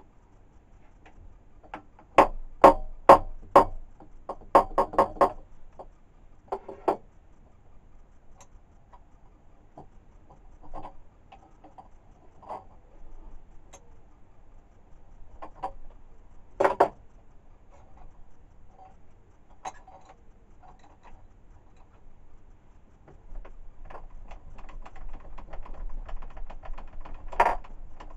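Sharp metal knocks and clicks from a workpiece being handled and clamped in a milling-machine vise. There is a quick run of about four knocks a couple of seconds in, another cluster soon after, and a single loud knock about two-thirds of the way through. The last few seconds hold a denser rattle over a low hum.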